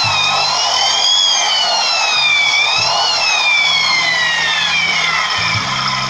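Automatic scooter running with a turbo-whistle sound effect: a high whistle that rises and falls twice with the throttle, over the low engine hum, then fades out near the end.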